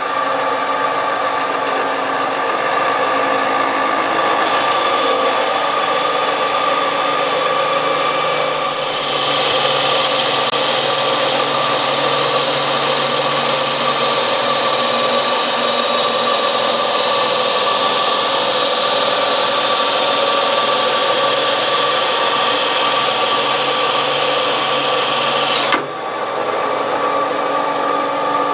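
Diamond Tech Precision 2000 diamond-blade band saw running steadily in a wet cut, with a hum and a whine. A grinding hiss from the blade cutting through a glass wine bottle builds about four and again about nine seconds in. It drops away about three seconds before the end, and the saw runs on.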